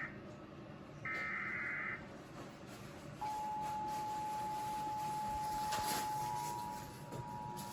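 Emergency Alert System signalling: about a second in, a one-second screechy burst of SAME digital header data. Around three seconds in, the steady attention tone begins, joined about three seconds later by its second, slightly higher tone, the 853 and 960 Hz pair that announces a new alert.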